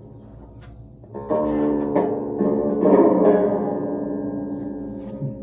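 Five-string banjo strings being plucked: faint ringing at first, then a loud plucked chord about a second in and several more plucked notes over the next two seconds, left to ring and fade.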